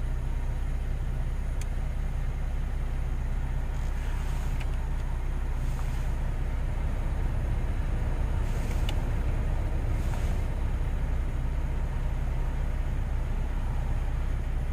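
Van engine idling, heard from inside the cabin as a steady low rumble, with a couple of soft hisses over it.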